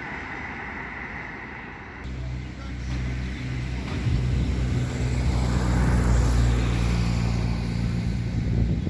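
Steady noise for about two seconds, then a vehicle engine running with a steady low hum that grows louder over the next few seconds.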